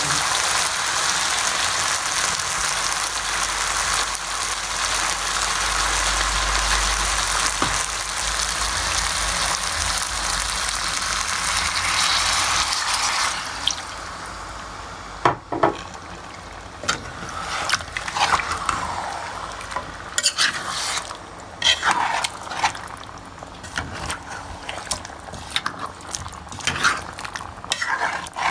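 Chicken curry sizzling hard as it fries in a hot pan. The sizzle drops away suddenly a little under halfway through, and after that a spoon scrapes and clinks against the pan as the curry is stirred.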